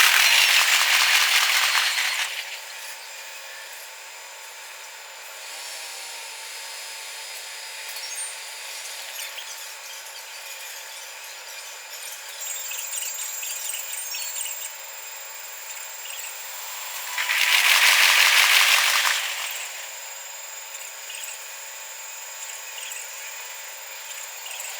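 Railway level crossing with its warning bell ringing on and trains going by: a loud passing that fades about two seconds in and another, rising and falling, about 17 seconds in.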